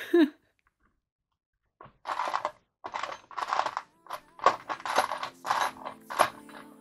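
Short, irregular scraping strokes of hand work on small wooden parts at a workbench, starting about two seconds in. Soft background music fades in under them about four seconds in.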